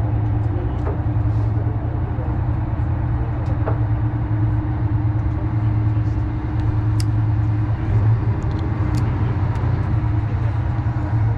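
Fishing boat's engine running steadily, a continuous low hum, with a few faint clicks from tackle on deck.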